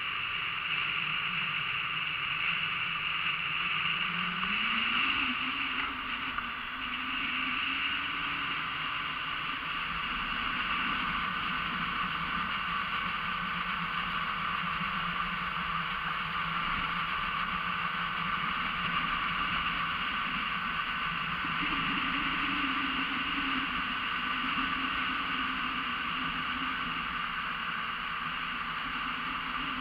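Outboard motor of an Ob aluminium motorboat running under way, with a steady hiss over it. The engine note climbs about four seconds in and then wavers up and down with speed.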